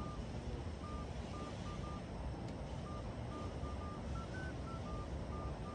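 A string of short, high beeping tones at a few slightly different pitches, mostly brief with a longer one near the end, over a steady low hum of background noise.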